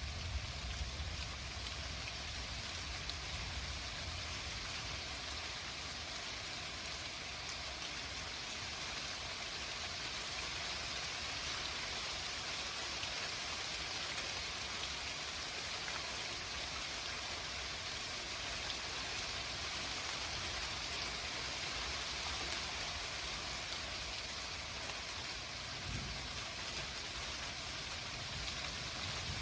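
Steady heavy rain falling from a thunderstorm, an even hiss of drops on surfaces, with deep low rumbles near the start and again near the end.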